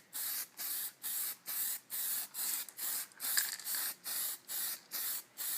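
Aerosol can of Design Master Tint It orange spray tint hissing in short, evenly spaced bursts, about three a second, laying down a light first coat of tint.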